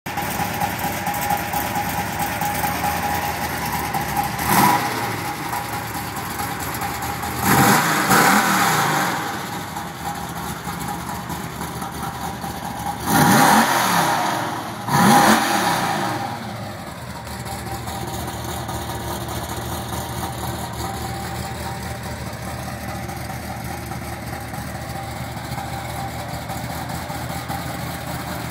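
1955 Chevrolet two-door's big-block 396 V8 (375 hp, solid-lifter cam) idling. The throttle is blipped briefly about four and a half seconds in, then revved harder around eight, thirteen and fifteen seconds, each rev rising and falling back to idle. It idles steadily through the second half.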